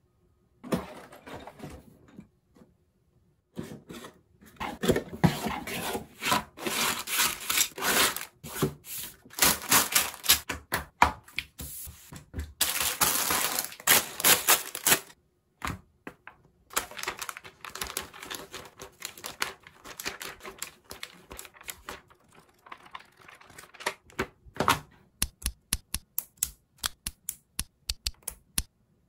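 Rustling and crinkling of a clear plastic bag of Lego Technic pieces being handled and opened. Near the end comes a quick run of sharp plastic clicks as small Technic parts are fitted together.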